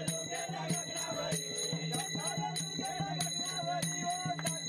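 Group of men singing a devotional song to a hand drum and small hand cymbals, struck about three times a second, the cymbals ringing on each beat.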